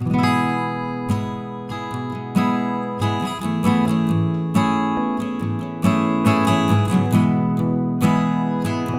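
Background music: strummed acoustic guitar playing a steady series of chords.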